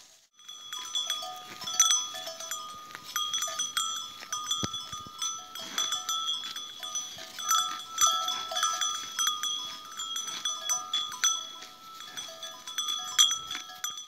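Bells on grazing cattle and goats clanking irregularly as the animals move and feed, several bells at different pitches ringing over one another.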